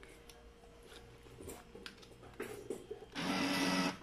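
Bill acceptor on a coin-dispensing bill changer taking in a 50-peso banknote: a few faint clicks, then about three seconds in its motor whirs steadily as it pulls the note in for checking.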